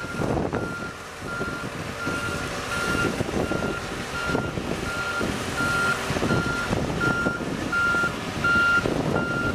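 Travel alarm of a Marine Travelift boat hoist beeping steadily, about two short beeps a second, while the lift drives with a boat slung in it. Underneath is the lift's engine running and wind buffeting the microphone.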